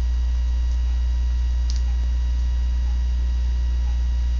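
Steady low electrical mains hum running through the recording, with faint steady higher tones above it and a small click about halfway through.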